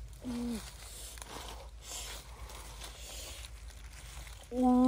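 Dry leaf litter rustling and crunching under footsteps and handling. A short, flat-pitched vocal sound comes just after the start, and a louder, longer one near the end that drops in pitch as it stops.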